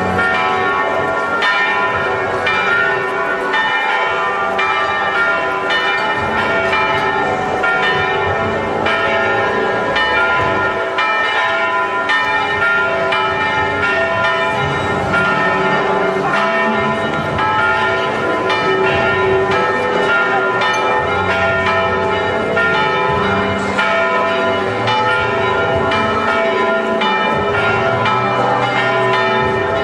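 Church bells pealing continuously from the bell tower, several bells struck in quick, irregular succession so that their ringing tones overlap.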